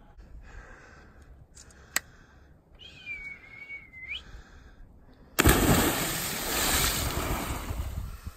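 A person plunging off a dock into spring water: a sudden loud splash about five seconds in, followed by a few seconds of churning, hissing water. Before it there is quiet open air, broken by a single whistled note that lasts about a second.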